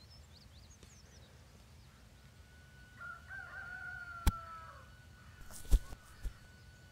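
A rooster crows once in a single falling call of under two seconds over quiet outdoor ambience. A sharp click cuts across the crow, and a loud thump and a smaller one follow near the end.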